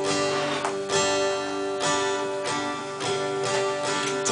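Acoustic guitar strummed, a steady run of chords with a stroke roughly every half second to second: the instrumental introduction of a song, before the singing comes in.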